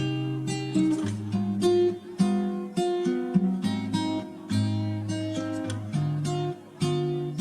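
Background music: acoustic guitar playing a run of plucked notes at a steady pace.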